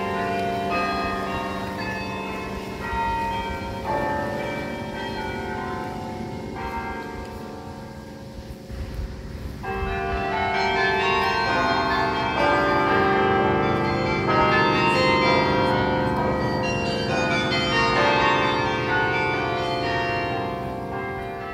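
The Bok Tower carillon, a tower instrument of 60 bells, playing a tune: bells struck one after another, their tones ringing on and overlapping. It is briefly softer just before the middle, then fuller and louder through the second half.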